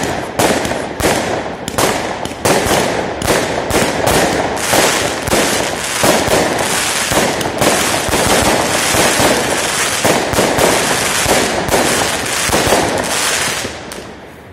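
Fireworks bursting close overhead: a fast run of sharp bangs, a few a second, that thickens into a dense, continuous crackle of crackling stars, then dies away near the end.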